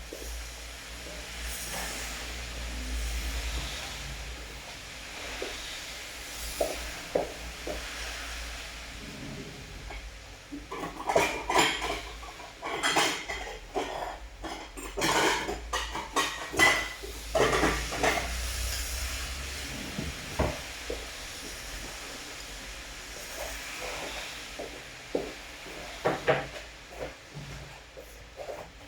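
Steady hiss of rain, with a burst of sharp clatters and knocks in the middle and a few more near the end, like dishes or objects being handled.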